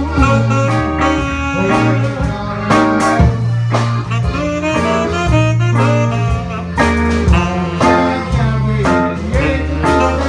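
Live band playing an upbeat instrumental passage: electric guitar, accordion and saxophone over a steady rhythm with frequent drum hits.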